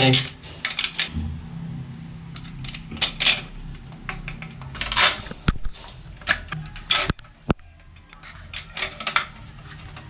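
Screwdriver driving a screw through a plastic shower-rail bracket into a wall plug. The tip scrapes and clicks in the screw head in short, irregular bursts, with a few sharp clicks.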